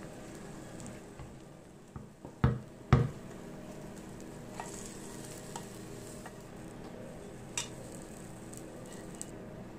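Cabbage-and-egg omelette sizzling in a stainless steel frying pan, a steady hiss, with two sharp knocks about two and a half and three seconds in and a few light ticks later as the pan is handled.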